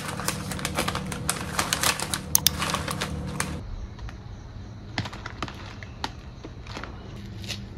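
Plastic noodle packet crinkling as it is handled: dense crackling for the first three and a half seconds, then sparser, scattered crinkles.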